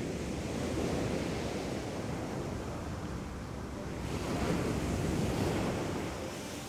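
Rough, wind-driven sea: waves breaking and washing, with wind gusting on the microphone. The wash swells about a second in and again around four and a half seconds in.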